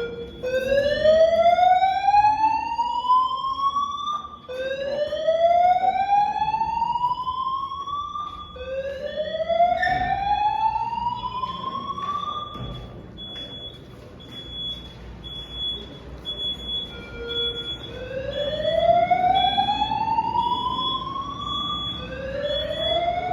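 Building fire alarm sounding a slow whoop evacuation tone: each tone rises for about four seconds, then starts again, with a pause of several seconds between the third and fourth. A high pulsing beep runs alongside. The alarm was set off by a burst water pipe or sprinkler, not a fire.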